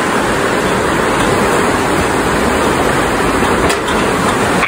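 Steady rushing of water flowing beneath a metal footbridge, an even roar that drops away suddenly at the end.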